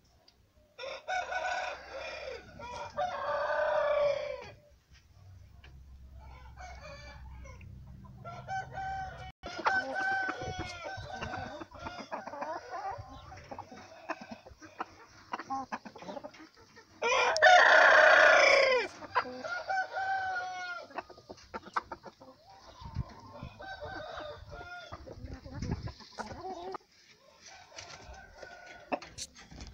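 Gamecock roosters crowing, with chickens clucking between the crows. One long crow comes about a second in, and the loudest crow comes just past the middle.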